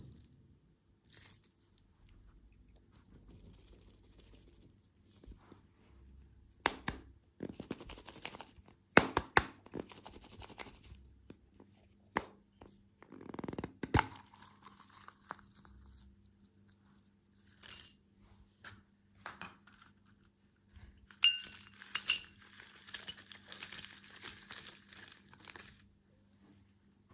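Candy packaging being opened by hand: plastic wrappers tearing and crinkling, with sharp clicks and knocks, in separate bursts with quiet gaps between.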